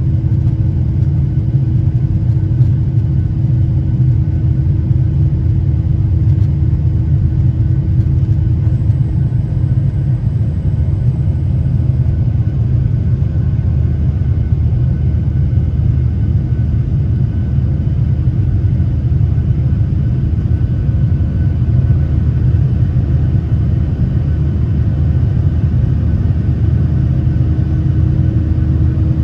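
Steady low rumble of a Boeing 737-800's CFM56-7B jet engines and rushing air, heard inside the cabin during the climb after take-off. A steady hum on top fades out about ten seconds in and comes back near the end.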